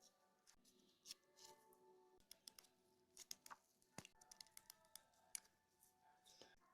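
Faint background music with small scattered clicks and taps, one sharper click about four seconds in.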